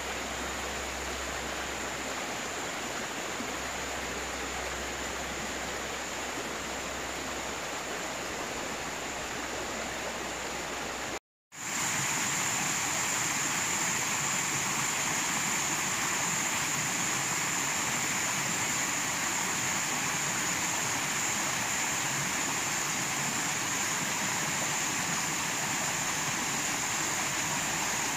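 Steady rush of a shallow river running over rocks and small rapids. It cuts out briefly about eleven seconds in and comes back louder.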